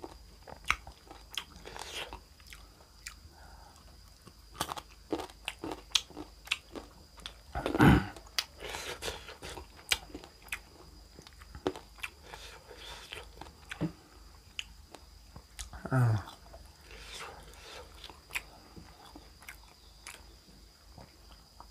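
A person biting and chewing crisp food close to the microphone, with many sharp crunches. A louder sound comes about eight seconds in, and a short falling voice noise about sixteen seconds in.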